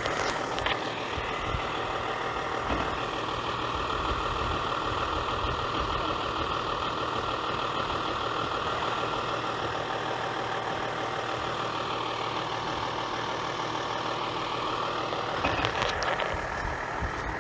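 VW Touareg engine running steadily while the SUV crawls along a muddy off-road track, with a few short knocks and clatter near the end.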